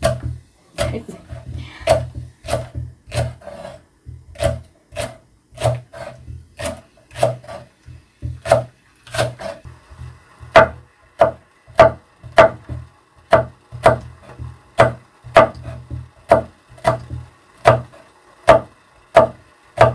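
Kitchen knife chopping vegetables on a wooden cutting board, a steady run of sharp knocks about two a second. The strokes grow louder and more even about halfway through as the knife works through a red chili pepper.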